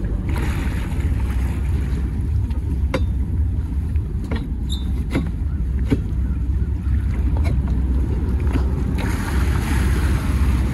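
Motor yacht's engine running steadily, a deep rumble with a few light clicks scattered through it. A hiss of wind or water rises near the end.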